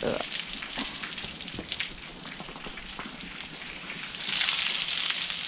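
Rain pattering and water dripping onto a boat's tarpaulin cover, with scattered single drips. About four seconds in, a louder hissing rush of water sets in as water pooled on the tarp runs off.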